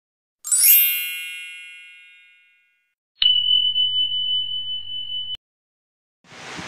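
Intro sound effects: a bright shimmering chime that rings out and fades over about two seconds, then a steady high ringing tone for about two seconds that cuts off suddenly. Just before the end a steady rustling noise begins.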